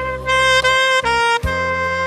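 Instrumental music: a saxophone plays a melody of long held notes over a backing track with bass.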